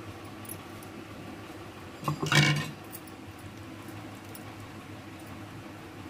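A single short knock of the grinder jar against the steel bowl about two seconds in, over a steady low hum, while thick ground poppy-seed paste is emptied from the jar.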